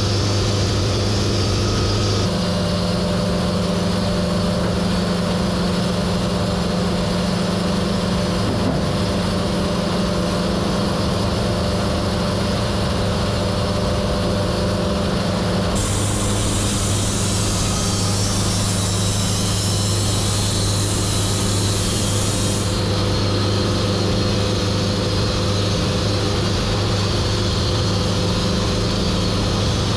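Wood-Mizer portable band sawmill running at a steady engine speed while sawing a poplar log. Its note shifts about two seconds in and again about halfway through, with a hiss added for several seconds after the second shift.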